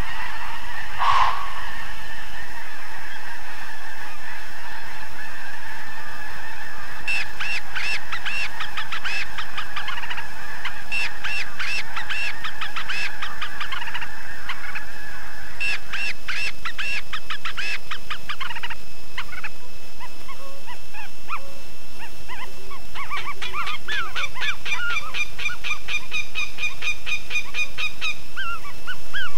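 Geese honking in several bouts of quick, repeated calls, with a steady high thin tone underneath.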